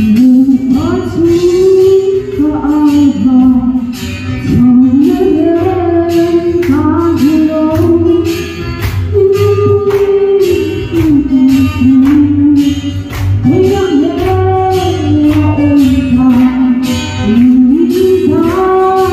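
A woman singing a melody into a handheld microphone, over accompaniment with a steady beat.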